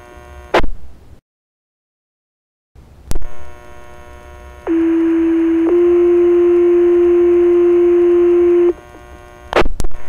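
Fire dispatch radio channel sending a two-tone sequential page: a loud steady low tone for about a second that steps up slightly to a second tone held about three seconds, the alert that sets off the firefighters' pagers. Before it come two sharp radio clicks with a short stretch of dead air between them, and two more clicks follow near the end as the channel is keyed again.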